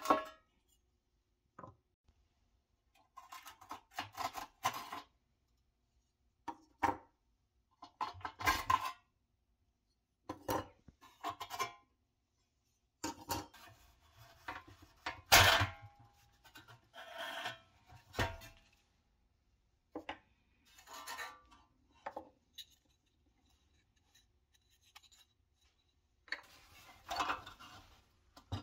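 Pressed-steel toy truck parts handled on a wooden workbench: intermittent scrapes, rubs and metallic clicks, with one sharp knock a little past the middle.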